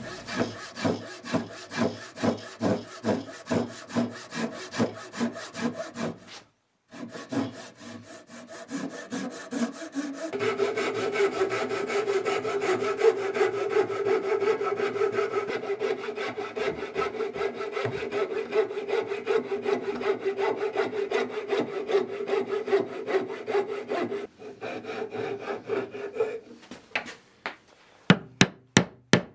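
A handsaw cutting hardwood in even strokes, about two to three a second. Then a metal marking gauge is dragged along the wood in a long steady rub with a faint held tone, and near the end come a few sharp knocks from a chisel being struck.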